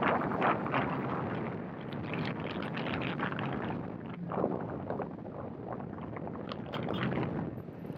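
Toyota 4x4 driving along a dirt road: steady road noise with gravel and small stones crackling under the tyres and the body rattling over the bumps.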